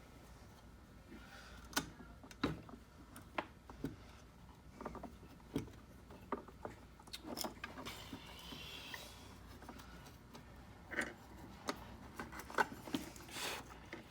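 Scattered small clicks and knocks of tools and metal parts being handled while working on a key machine's motor, about one to two a second, with a short hiss about eight seconds in.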